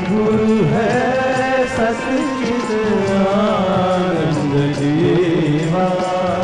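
Devotional Sai bhajan sung live: a male lead voice sings held, wavering melodic lines over instrumental accompaniment, with a steady beat of percussion strokes.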